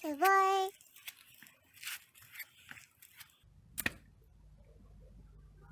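A short, high-pitched vocal cry that rises and then holds, followed by faint crackling and rustling, a single sharp click and a low steady hum.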